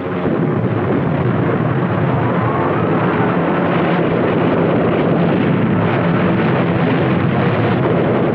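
Steady, loud drone of aircraft engines, a dense rumbling noise that keeps up without breaks.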